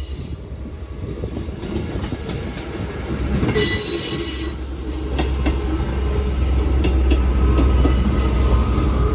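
Class 158 diesel multiple unit running past on the rails, its low engine and wheel rumble building as it nears. A brief high-pitched squeal rings out about three and a half seconds in.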